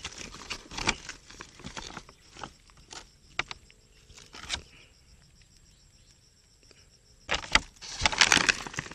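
Plastic bag rustling and crinkling as a hand opens it, with small clicks and knocks, then louder handling noise near the end as fingers rub over the phone.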